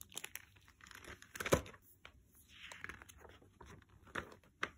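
Hardcover picture book in a plastic library jacket being opened and its pages turned: irregular crinkling and rustling of plastic and paper, with the sharpest rustle about one and a half seconds in and a few light clicks near the end.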